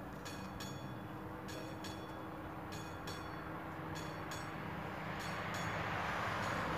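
AŽD 71 level-crossing warning bell ringing in pairs of metallic strikes, about one pair a second, while the crossing is closed for a train. Over the last couple of seconds the rumble of the approaching train grows louder under the bell.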